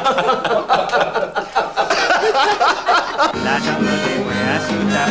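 People laughing, then about three seconds in, a piece of music starts.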